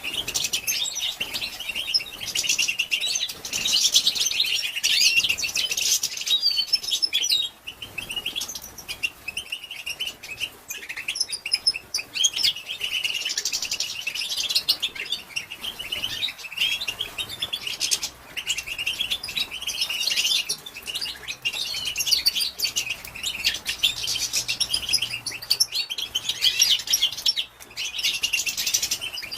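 Female European goldfinch giving its rapid, continuous twittering chatter, with a few brief pauses.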